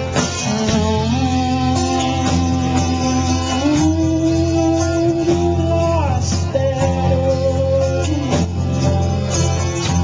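Live band with electric guitar, acoustic guitar and drums playing, over a steady bass and a melody of long held notes that slide up and down between pitches.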